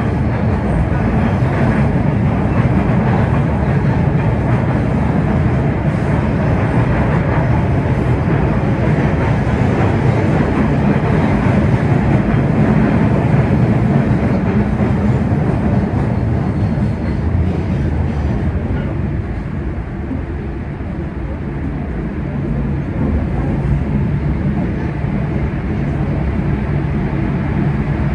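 MBTA Red Line subway car running at speed through a tunnel, heard from inside the car: a steady, loud rumble of wheels on rail. It eases slightly about two-thirds of the way through, then builds again.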